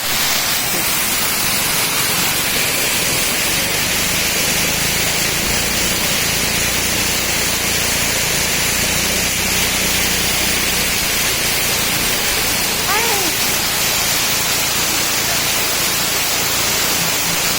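Waterfall rushing: a loud, steady hiss of falling water. A short gliding call cuts through it about thirteen seconds in.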